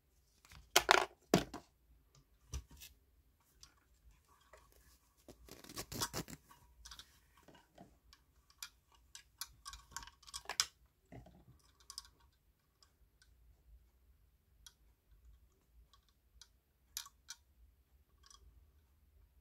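Close handling noise: rustling and scraping of a cloth drawstring bag and packaging, with scattered clicks and light knocks as a metal guitar effects pedal is taken out and turned over in the hands. The loudest rustles come about a second in and around six seconds, then the handling thins out to occasional clicks.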